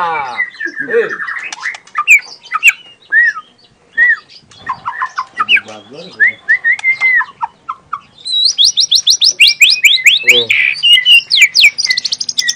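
A young wild-caught white-rumped shama singing: a varied string of short whistles and gliding chirps, then, from about two-thirds of the way in, a fast run of rapid repeated high notes, the rapid-fire 'tembakan' song.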